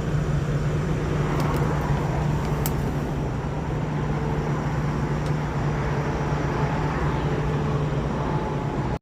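Steady low engine hum of an idling motor, with a wash of roadside traffic noise and a couple of faint clicks.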